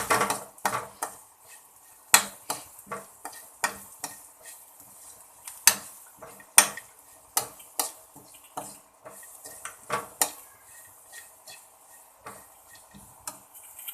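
Masala paste frying in a pan while it is stirred, the utensil clicking, knocking and scraping against the pan at an irregular pace over a faint sizzle. The paste is being fried to cook off its raw smell.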